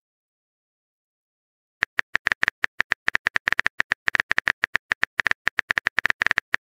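Keyboard typing sound effect of a texting-story chat animation: a fast, unevenly spaced run of short key clicks that starts about two seconds in, after a silence.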